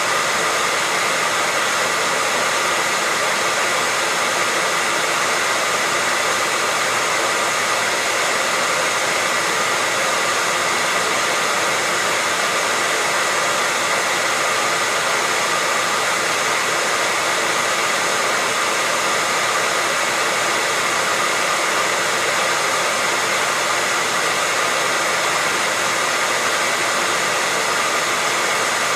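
Hair dryer running steadily with no change: an even rushing hiss with a faint steady whine in it.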